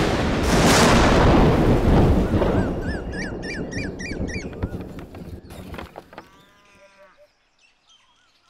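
A sudden thunderclap that rumbles and slowly dies away over about five seconds. As it fades, birds chirp in short repeated calls, with a brief held animal call a little past the middle.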